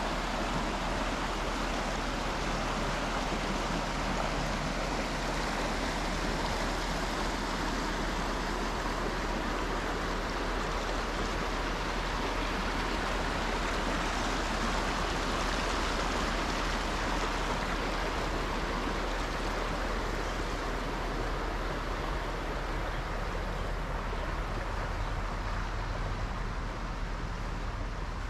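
Shallow creek water running over rocks, a steady rushing that grows a little fainter near the end.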